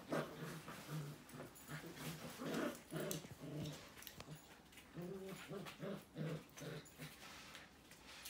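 Golden retriever puppies play-growling and whimpering as they wrestle, a run of short growls coming several a second, with light clicks and scuffles.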